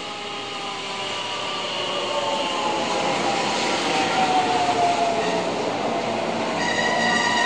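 JR West 223 series electric train pulling in and slowing past the platform, its inverter and traction motors whining with a pitch that falls steadily as it brakes, growing louder as the cars draw alongside. A high steady squeal sets in near the end.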